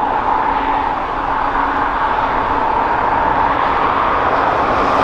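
Steady jet engine noise from airliners across the airfield: an even rushing sound with a faint low hum beneath it.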